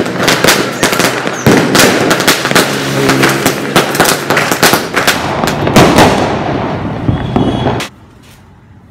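Firecrackers going off in quick succession: a dense run of loud, sharp bangs and cracks, several a second, which cuts off abruptly about eight seconds in.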